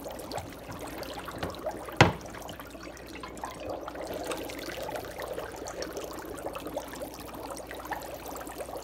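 Dry ice bubbling and gurgling in a sink of water as the carbon dioxide comes off it, with one sharp knock about two seconds in.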